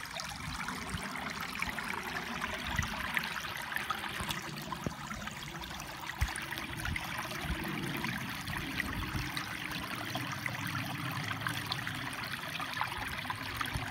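A small stream trickling over rocks: a steady, even rush of water, with scattered faint ticks.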